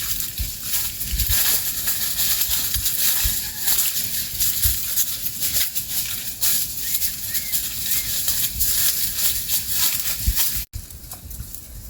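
Goats browsing on forest vegetation: a dense crackling rustle of leaves and twigs with scattered low thumps. It cuts off abruptly near the end to a quieter background.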